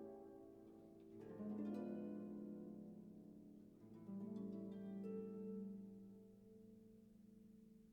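Soft background music of sustained plucked-string chords, like a harp, with new chords sounding about a second in and again about four seconds in, each slowly dying away.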